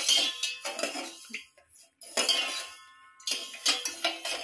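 Metal spoon stirring sugar and water in a metal pan as the sugar syrup is cooked, clinking and scraping against the pan in several short bursts.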